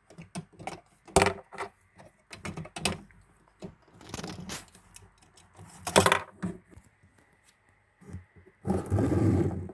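Plastic Lego pieces and a minifigure being handled, with scattered clicks, taps and scrapes, two of them sharper knocks; a louder rustling of handling near the end.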